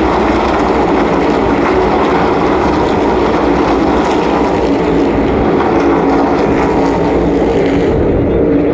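NASCAR Cup stock cars' V8 engines running at full speed around the oval, a loud steady drone of several engine notes at once that turns duller near the end as the cars move away.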